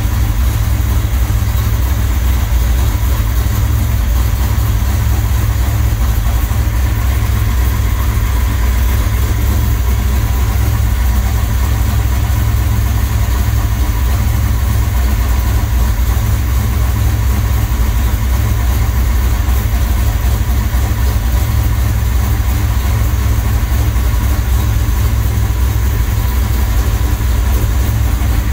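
1969 Chevelle SS 396 big-block V8 on Holley Terminator Stealth fuel injection, idling steadily at about 930 rpm with a deep, even rumble.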